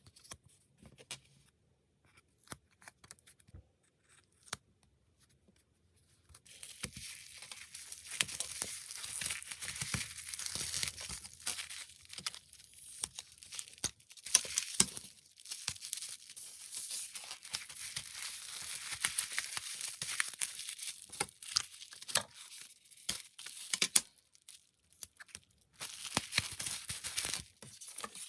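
Packing materials being handled: a few light taps and clicks, then about six seconds in a long stretch of crinkling, rustling and tearing with many small clicks, which briefly pauses near the end and starts again.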